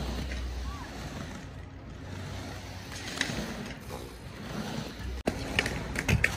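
Roller skate wheels rolling on a concrete skate ramp, a steady low rumble, with a few sharp clicks near the end.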